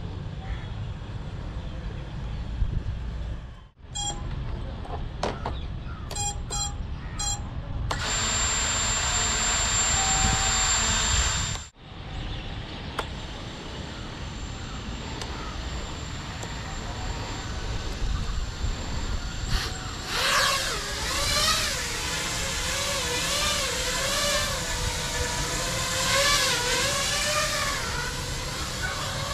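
FPV quadcopter: a few short electronic beeps, then a loud steady whirring with a high whine for about four seconds. From about twenty seconds in, its motors hum while the drone hovers, their pitch wavering up and down as it corrects to hold position.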